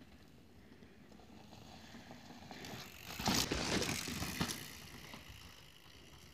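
Bicycle tyres rolling over a dirt forest trail, growing louder as the rider approaches, with a few short crackles as the bike passes close by about three to four seconds in, then fading away.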